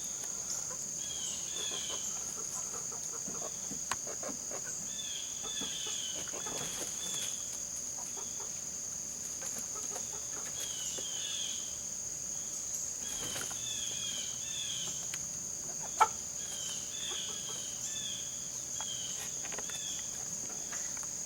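Outdoor ambience of insects giving a steady, high, even drone, with small groups of short chirping bird calls repeating every few seconds and one sharp squawk about sixteen seconds in.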